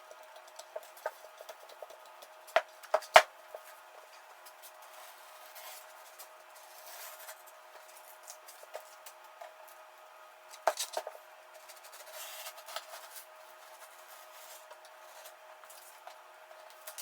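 100-grit sandpaper being pressed and rubbed down onto a plywood sanding disc: rustling and rubbing, with a few sharp knocks about three seconds in and a cluster of them about eleven seconds in.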